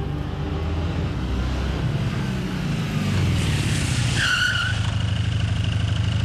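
Motorcycle engine growing louder as it approaches, then a short tyre squeal about four seconds in as it brakes to a stop, followed by the engine idling.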